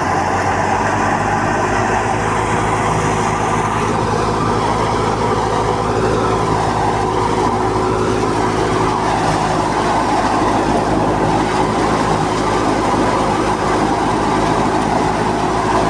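Wheat thresher running steadily at full speed, a continuous engine hum under the noisy rush of the machine.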